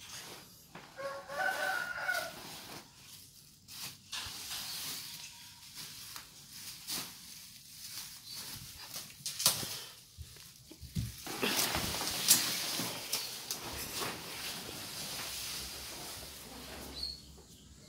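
Rustling and crinkling of a new synthetic tent fabric being handled and shifted about, in irregular bursts with a steadier stretch in the second half. A short pitched call sounds about a second in.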